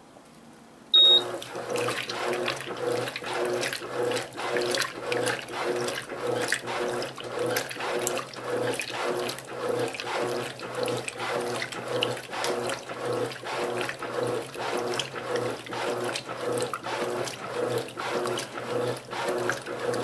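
Electrolux Silent Control 12 kg (LAC12) top-loading washer starting up with a short beep about a second in, then agitating a load of bedding and towels on turbo wash at high water level. The motor hum and water sloshing pulse about twice a second.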